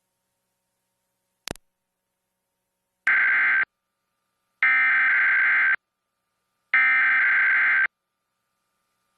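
Emergency Alert System SAME header: three bursts of buzzy digital data tones, each about a second long and about a second apart, carrying the coded test alert. A short click comes just before them.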